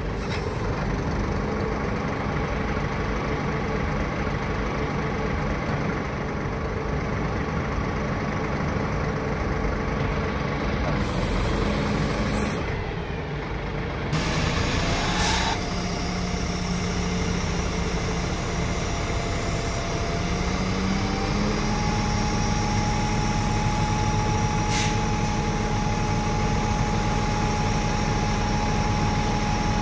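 Scania G 560's V8 diesel idling, with short hisses of compressed air partway through. Later the engine speed steps up and holds steady with a steady whine, as the JOAB L24A hooklift's hydraulics work the hook arm.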